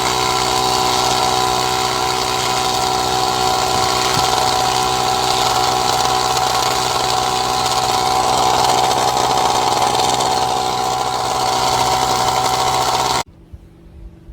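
AstroAI 12 V portable tyre-inflator air compressor running steadily with a constant motor hum, then stopping abruptly about a second before the end.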